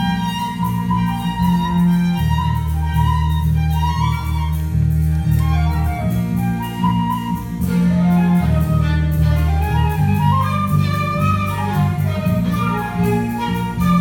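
Live chamber ensemble with cello and violin playing: long low notes that change every couple of seconds under a higher melody with sliding pitches.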